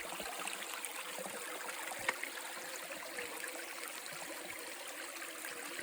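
A small creek running steadily over rocks, with one short knock about two seconds in.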